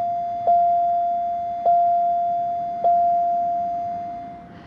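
1992 Pontiac Bonneville SSE's dashboard warning chime: a single-pitched ding struck about once every 1.2 seconds, three times, each ringing out and fading, stopping shortly before the end.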